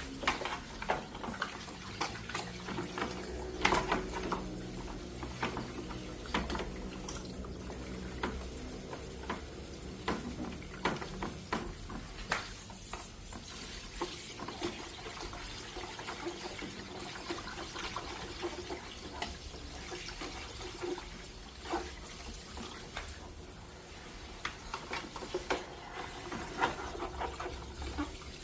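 Water running and splashing, with scattered clicks and knocks over a faint low steady hum.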